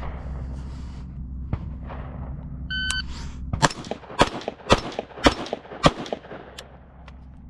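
A shot timer beeps once, then about half a second later an AR-15 chambered in 7.62x39 with a muzzle compensator fires five quick shots, roughly one every half second.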